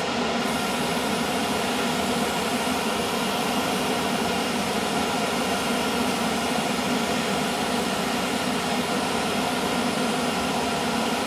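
Airbrush spraying primer in light coats, a steady air hiss over the even hum of a spray booth's extractor fan.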